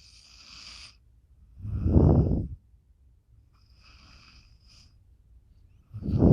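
Dog snoring in its sleep: a loud snore about two seconds in and another starting near the end, with quieter breathy hisses between them.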